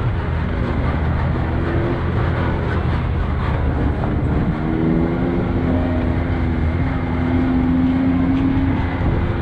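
Can-Am Maverick X3 turbo side-by-side engine running steadily while driving along a dirt trail, its pitch rising a little in the second half.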